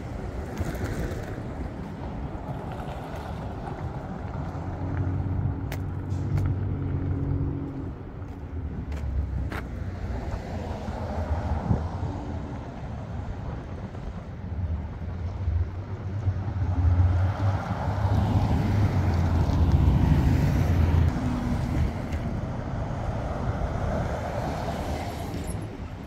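Street traffic: cars and trucks driving past, their engine noise swelling and fading, with the loudest pass about two-thirds of the way through.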